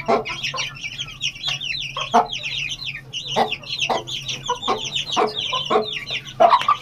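A brood of 19-day-old Aseel chicks peeping continuously in quick, high chirps while they feed, with the hen clucking low among them and occasional sharp taps of pecking.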